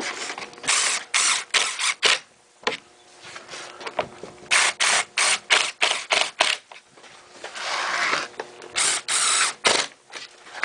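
Cordless drill driving screws into a newly fitted seal, run in short bursts of the trigger in three groups, several pulses a second.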